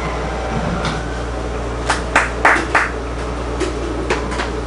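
Four sharp knocks in quick succession about two seconds in, over a steady low rumble inside a railroad passenger car.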